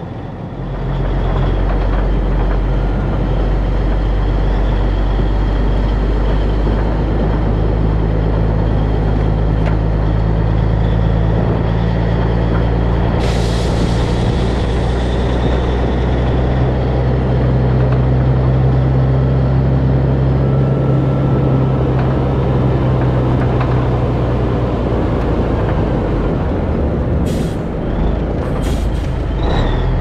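Diesel engine of a Peterbilt cabover semi running steadily as the truck drives, with a short hiss of air about a third of the way in and a few short sharp sounds near the end.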